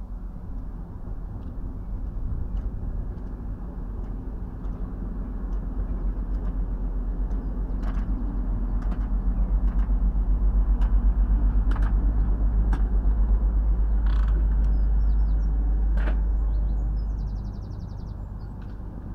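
Low engine rumble of a passing vehicle, swelling for several seconds and fading away near the end. A few short ticks and a brief high chirping near the end sit on top.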